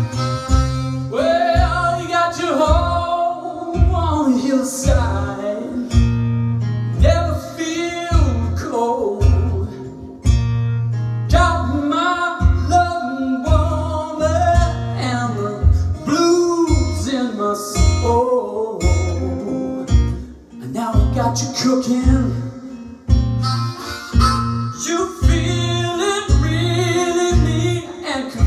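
Acoustic blues: an acoustic guitar keeps a steady bass beat under a harmonica playing bent notes.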